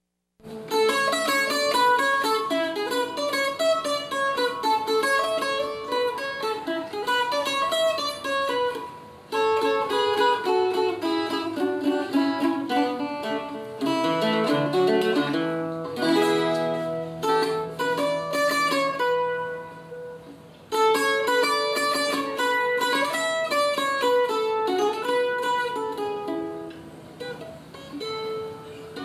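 Puerto Rican cuatro, an instrument with ten steel strings in five paired courses, played solo: quick picked melodic runs, with short breaks about nine and twenty seconds in.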